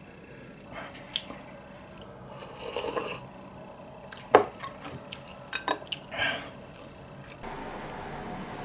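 Chopsticks, bowl and cup clinking during a meal: a handful of sharp taps and knocks, with a couple of short scraping or sipping sounds between them. Near the end the sound changes to a steady, even room hum.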